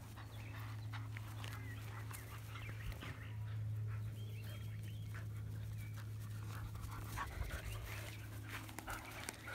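Two dogs in a tug of war over a crochet frisbee: panting and scuffling on grass over a steady low drone, with faint bird chirps now and then.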